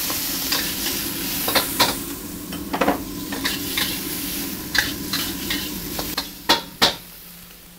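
Prawns sizzling in a wok over high heat while a metal wok ladle stirs them, scraping and clanking against the wok at irregular moments. The sizzle drops away near the end.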